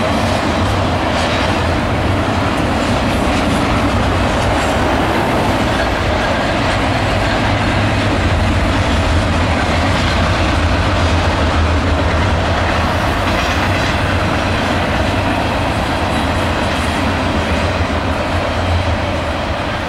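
Double-stack container well cars of a long CSX freight train rolling by over a girder bridge: a loud, steady rumble and rattle of steel wheels on rail.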